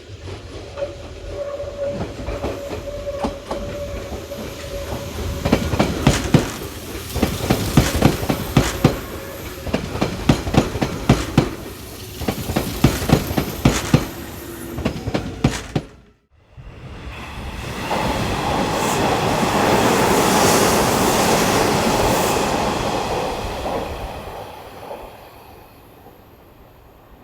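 Hanshin Railway electric trains at a station: wheels clatter over the rail joints in a quick, regular rhythm for about sixteen seconds. After a sudden break, another train passes as a smooth rushing noise that swells and fades away.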